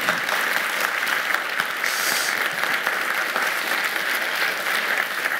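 Audience applauding steadily: a large seated crowd clapping at an even level throughout.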